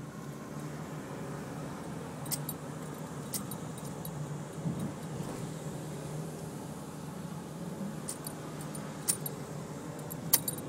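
Steady low hum of a car's engine and tyres heard from inside the cabin while driving, with a few sharp light metallic jingles, twice about two and three seconds in and several more near the end.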